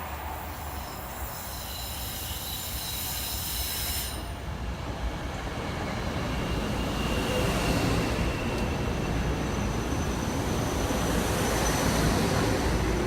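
SEPTA Silverliner IV electric train moving along the track, its noise growing steadily louder, with high, steady squealing tones over it for the first four seconds.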